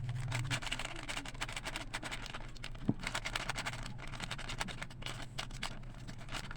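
Pancake batter being mixed in a bowl: a utensil scraping and tapping against the bowl in quick, irregular strokes.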